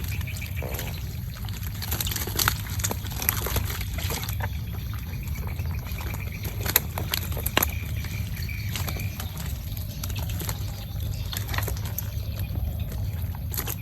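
Water trickling and splashing, with scattered sharp splashes or knocks over a steady low rumble.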